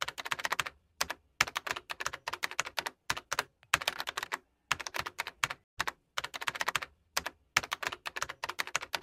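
Keyboard typing sound effect: quick runs of key clicks separated by brief pauses, about a dozen runs in all.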